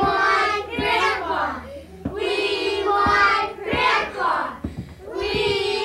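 A young child singing in short phrases, several of them opening on a held note.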